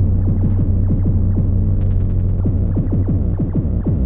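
Experimental electronic music played live: a heavy, steady low drone under a rapid stream of falling pitch sweeps, several a second.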